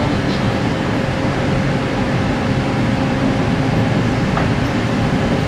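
Interior running noise of a JR Kyushu 817 series 3000-subseries electric train moving at speed. It is a steady low rumble of wheels on rail, with a faint steady hum over it.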